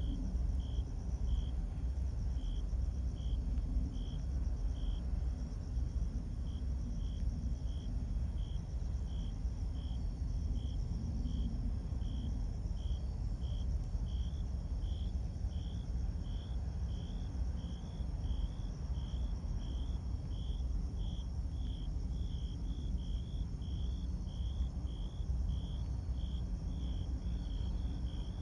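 A cricket chirping in a steady rhythm, about two short chirps a second, quickening slightly, over a steady low rumble.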